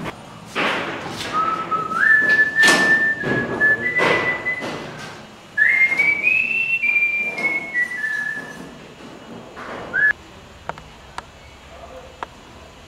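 A person whistling a tune, several held notes stepping up and then back down, with a short final note a little later. A few short rushes of noise sound under the first notes.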